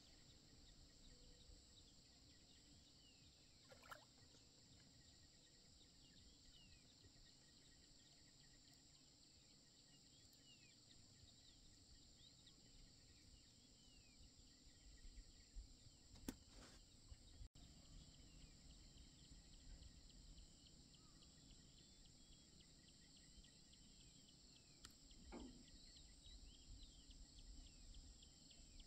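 Faint open-air lake ambience: a steady high insect drone with scattered small bird chirps, and a few soft knocks spread through.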